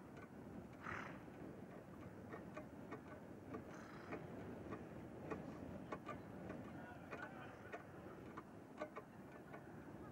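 Faint outdoor ambience: a steady low rumble with irregular light ticks, a few a second.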